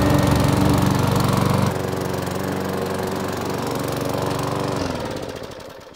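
The single-cylinder Briggs & Stratton overhead-valve petrol engine of a rear-roller lawn mower runs steadily while the mower cuts grass. The sound is louder for the first two seconds, then holds even and fades away near the end.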